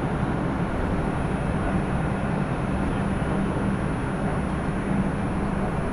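Steady hum and rumble inside a New York City subway car standing at a station, with a constant low drone and no distinct events.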